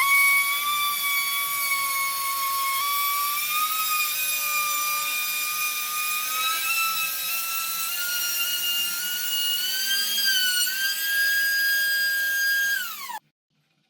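An electric power tool cutting a subwoofer mounting hole in wood, running with a steady high-pitched motor whine that slowly rises in pitch. Near the end it is switched off and the whine drops away.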